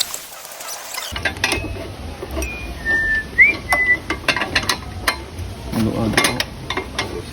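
Scattered metallic clinks and knocks of tools and parts being handled, over a low hum, with a few short whistled notes near the middle.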